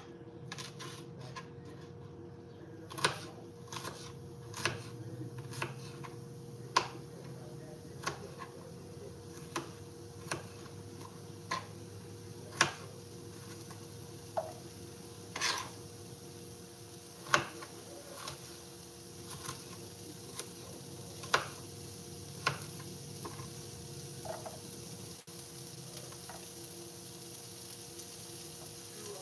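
Diced red bell pepper frying in a nonstick pan: a steady low sizzle broken by sharp clicks and knocks, irregular and about one every second or two, fewer near the end.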